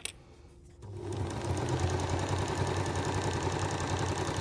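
A single click, then about a second in a domestic electric sewing machine starts and runs steadily, stitching a seam through layers of cotton and oilcloth.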